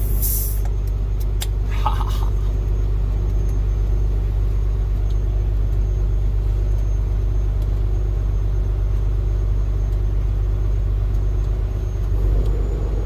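Steady low rumble of an idling truck engine heard inside the cab, with a few sharp clicks and a short rustle in the first two seconds.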